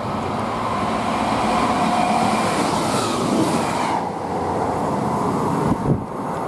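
A Class 158 diesel multiple unit passing through the platform at speed. Engine and wheel noise build to a peak about two seconds in and then fade as it goes by, with a short thump near the end.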